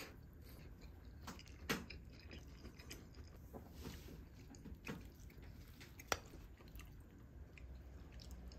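Quiet close-up eating sounds: a spoon working through creamy coleslaw in a glass bowl, with chewing. Two sharp clicks stand out, about two seconds in and about six seconds in.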